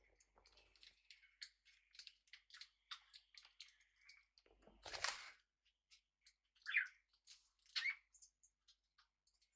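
Small pet parrots making quiet beak clicks and pecking sounds, with a brief rustle about halfway through and two short chirps soon after.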